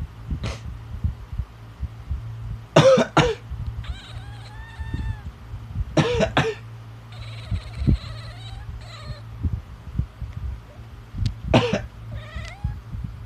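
A person coughs in three bouts, and after each one a cat answers with meows; the cat hates the sound of coughing. The meows after the second bout are the longest.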